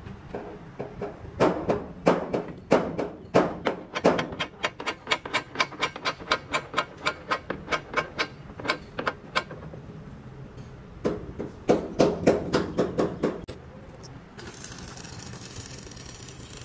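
Hammer blows on steel truck chassis metal: a few heavy, spaced strokes, then a fast even run of about four blows a second, a short pause and another burst. A steady hiss starts near the end.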